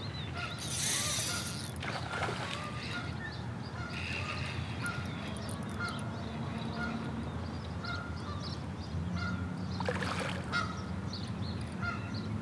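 A bird calling over and over, short high notes about once a second, with two brief rushes of noise, about a second in and again near the end.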